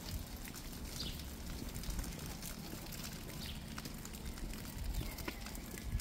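Street ambience while walking in the rain: a steady hiss of rain with scattered light taps and the walker's footsteps, and a couple of short high chirps, about a second in and again past the middle.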